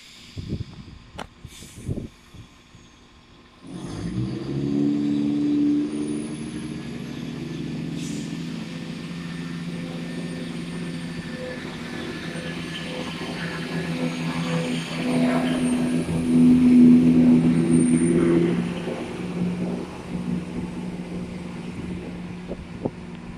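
Class 171 Turbostar diesel multiple unit pulling away: its underfloor diesel engines open up about four seconds in and run steadily, swelling as the train accelerates past and easing off near the end.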